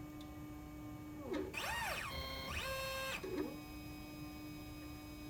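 Stepper motors of a TinyG-driven liquid-handling robot making a move: a pitched whine that glides up about a second and a half in, holds steady, then glides back down after about two seconds as the motion speeds up and slows. A steady low hum runs underneath.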